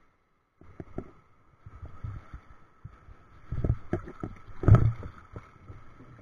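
Sea water sloshing and slapping against a waterproof action-camera housing at the waterline: irregular muffled knocks and surges, with the biggest splash hitting about four and a half seconds in.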